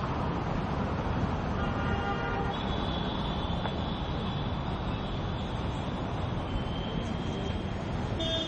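Steady street traffic noise, with vehicle horns sounding a few times.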